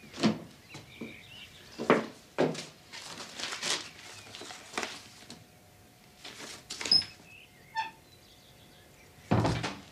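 Kitchen things being handled at a counter and table: a string of separate knocks and clatters of crockery and utensils, one with a brief bright clink about seven seconds in. A louder rustle of paper comes near the end.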